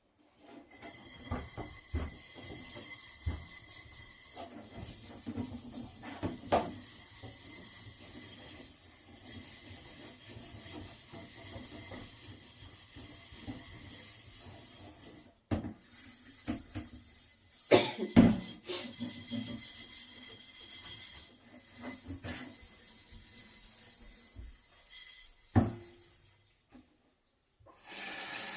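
Kitchen handling noises: rubbing and scraping on a wooden surface with scattered clicks and knocks over a faint steady hiss, the loudest knocks about two thirds of the way in and near the end.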